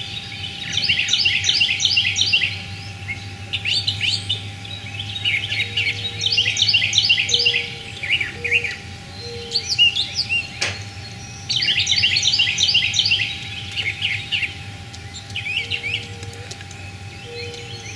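Backyard birdsong: a songbird sings a quick phrase of rapid high notes every few seconds, with soft low notes between the phrases. One sharp knock sounds a little past the middle.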